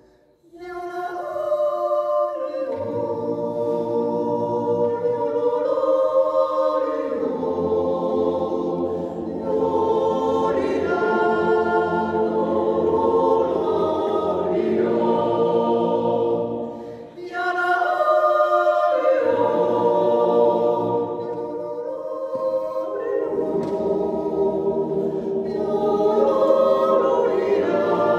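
Mixed yodel choir of men's and women's voices singing a Swiss Jodellied a cappella in long held chords, breaking off briefly about halfway through before the next phrase.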